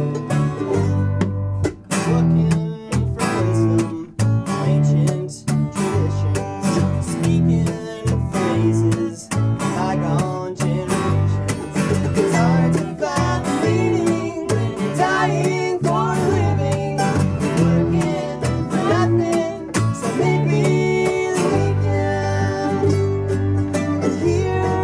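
Live folk-bluegrass band playing: mandolin strumming over cello and bass guitar. Singing comes in about ten seconds in.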